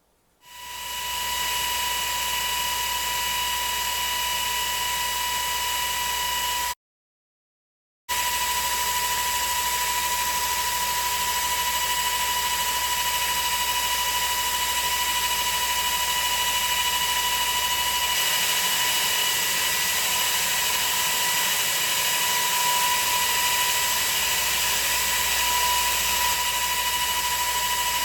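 A shop power-tool motor running steadily with an even hiss and a fixed whine. It spins up over the first second or so and cuts out briefly a quarter of the way in.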